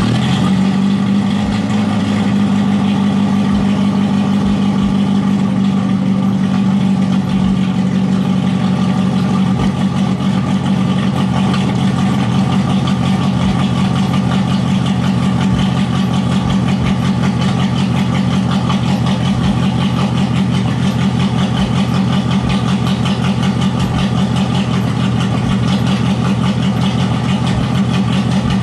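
Straight-piped Nissan mini truck engine idling steadily just after being started, loud and even.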